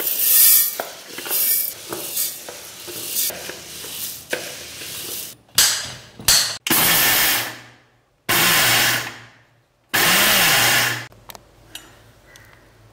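Roasted pearl millet grains rattling as they are poured into a steel mixer-grinder jar. Then the electric mixer grinder runs in three short pulses of about a second each, cracking the grains coarsely rather than grinding them to powder.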